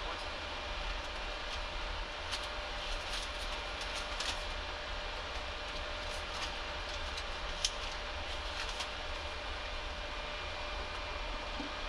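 Steady hum of the Boeing 737 flight deck's ventilation and equipment cooling fans while the aircraft is parked, with a few light clicks and paper rustles.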